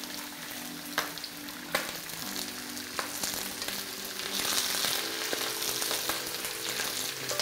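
Boiled chicken pieces sizzling in hot oil with fried onions in a frying pan as they are added one by one, with a few sharp knocks as pieces land. The sizzle grows louder about halfway through.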